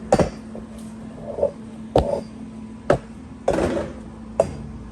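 Metal transmission parts being handled and set down: several sharp clanks and knocks, with a brief scraping rattle a little after the middle.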